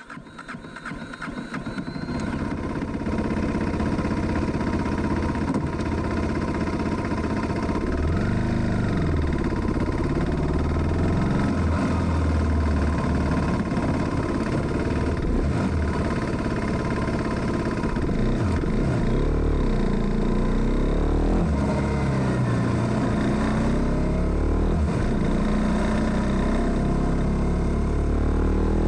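KTM Duke 390's single-cylinder engine, on a 2016 BS3 bike with a flashed ECU, running while the bike is ridden, its revs rising and falling as the throttle is opened and closed. The sound swells up from silence over the first few seconds.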